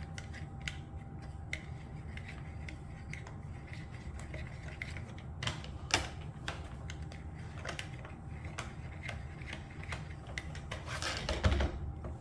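Plastic filter cap on a Dyson Ball Animal 2 vacuum being twisted and unscrewed by hand to get at the filter: a string of small irregular plastic clicks and knocks, with a louder knock about six seconds in and a quick cluster of clicks near the end.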